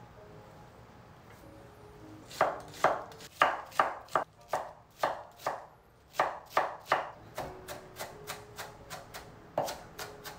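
A nakiri knife mincing onion on a thick wooden cutting board: after a quiet couple of seconds, a steady run of sharp chopping strikes, about two to three a second, turning lighter later on with one harder chop near the end.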